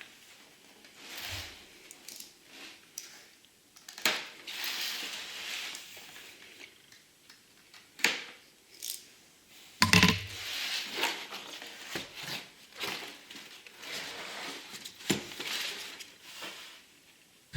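Packaging being handled: plastic and cardboard crinkling and rustling, with scattered clicks and light knocks.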